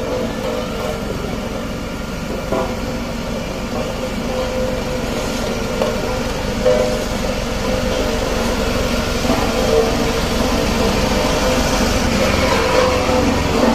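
Diesel engine of a road roller running steadily as it drives slowly over a gravel road, with a low rumble and a steady drone, getting somewhat louder toward the end.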